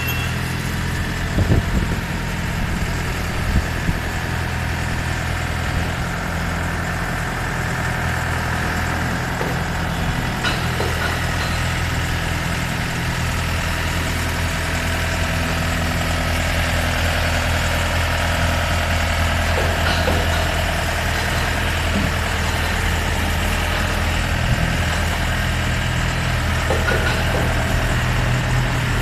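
Diesel engine of a Yanmar YH700 combine harvester running at a steady speed. Two brief knocks sound about one and a half and three and a half seconds in.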